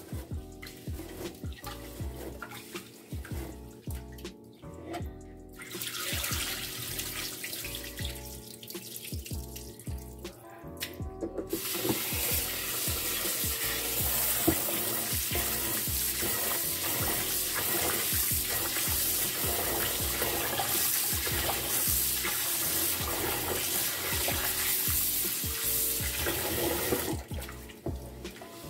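Hands swishing and stirring rice in water in a rice cooker pot, then a kitchen tap pouring water into the pot as an even hiss from about twelve seconds in to near the end, when the swishing of the rice returns.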